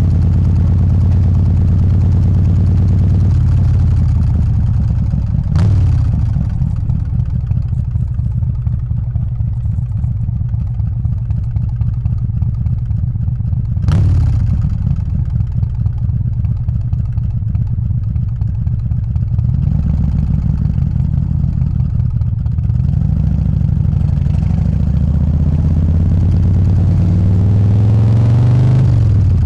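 Harley-Davidson Softail's 124 cubic inch S&S Evo V-twin engine running at low speed, a steady deep note, with two sharp knocks about five and a half and fourteen seconds in. In the last ten seconds the engine note rises and falls as the bike speeds up, climbing near the end.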